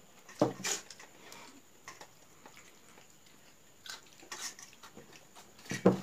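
Eating at a table: hands mixing rice on plates, with a few sharp clinks and knocks of dishes and a spoon, the loudest near the end.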